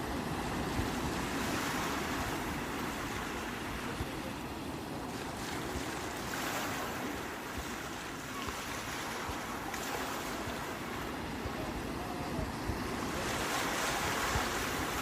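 Sea waves breaking and washing in, the surf swelling every few seconds, with wind rumbling on the microphone.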